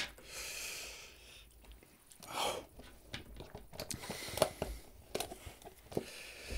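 Hissing breaths and short exhales through an open mouth, with faint chewing and small mouth clicks, from a man eating a piece of Carolina Reaper chilli: he is breathing against the burn.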